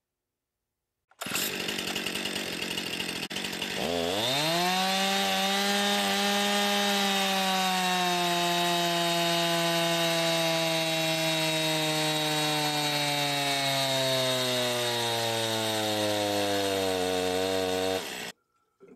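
Stihl MS 261 C 50cc two-stroke chainsaw running on a dyno. It starts abruptly about a second in at part throttle and is snapped up to full throttle about 3–4 s in. It is then held wide open against the dyno's load, its pitch slowly sinking, until it cuts off suddenly near the end.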